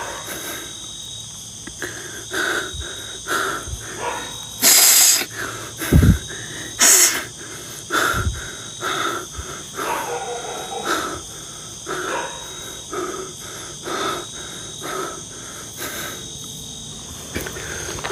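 Night insects, crickets among them, buzzing steadily, with a short sound repeating about every two-thirds of a second over it. Two brief loud hissing rushes come about five and seven seconds in.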